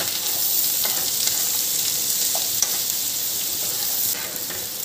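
Finely chopped onions sizzling in hot butter and oil in a nonstick pan, stirred with a steel spoon that scrapes the pan now and then. The sizzle eases slightly about four seconds in.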